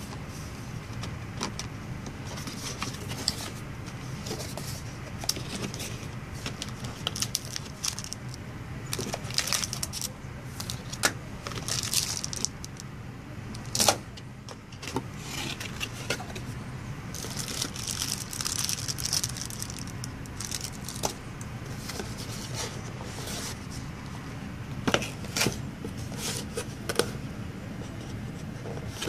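Cardboard camera packaging being opened and handled: flaps lifting, inner boxes and paper sliding, with scattered rustles, scrapes and small taps. A steady low hum runs underneath.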